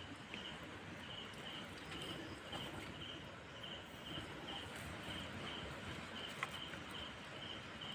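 Insect chirping steadily at night, short high chirps repeating about two to three times a second, over a faint even hiss.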